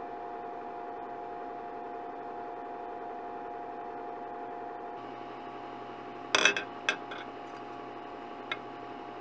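Steady hum with a low drone and two higher tones, then about six seconds in a quick clatter of metal-on-glass clinks as small metal parts on wires touch a glass baking dish of plating solution, and one more single clink near the end.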